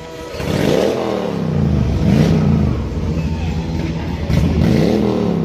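Big V-twin motorcycle engine revved in short blips while standing still. It rises and drops back to idle three times, the first and last the biggest.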